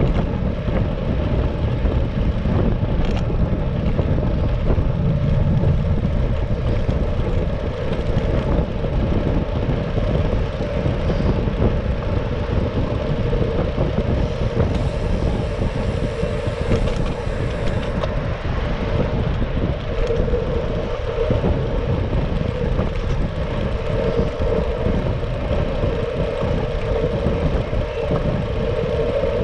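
Steady rush of wind and road noise on a bike-mounted action camera while cycling in traffic. A bus passes close alongside about halfway through, with a faint high whine.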